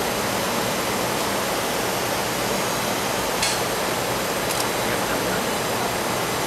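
Steady rushing air noise of a large hangar's ventilation, with two faint clicks about halfway through.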